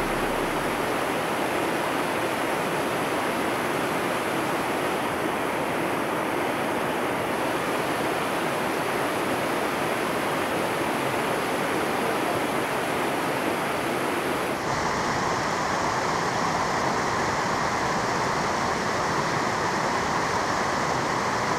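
Steady rushing of fast-running water, such as a snowmelt stream or waterfall. It changes character abruptly about fifteen seconds in.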